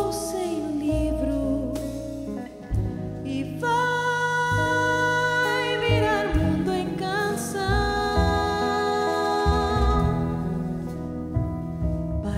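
Music from a song performance: a held, wavering lead melody over a steady low bass accompaniment.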